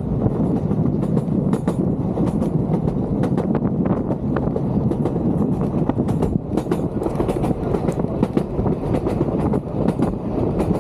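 Vintage Sóller railway train running along the track: a steady rumble of the carriages with irregular clicks and short squeals from the wheels on the rails.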